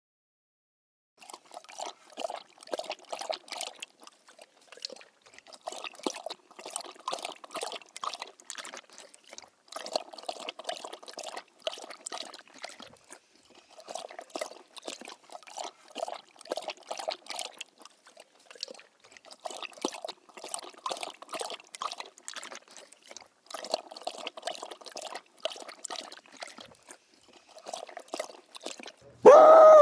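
A dog lapping water, with fast wet laps in runs of about two seconds separated by short pauses. Just before the end a much louder dog's yelp starts, falling in pitch.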